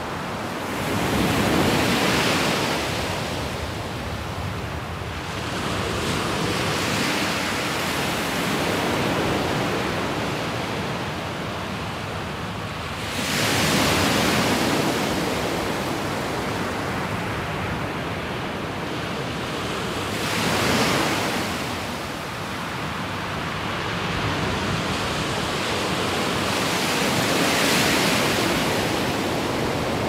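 Small waves washing onto a pebble beach: a steady rush of surf that swells as each wave comes in, every several seconds.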